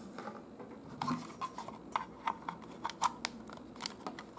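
A string of irregular small clicks and rattles from hands handling a plastic power adapter, its wires and metal alligator clips.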